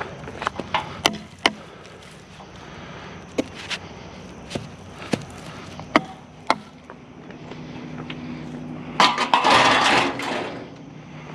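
Scrap metal being handled: scattered sharp knocks and clanks, then a louder scraping rattle about nine seconds in that lasts a second or two.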